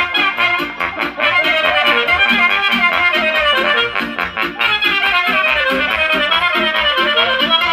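Loud, lively dance music: a fast, ornamented melody over a steady quick bass beat.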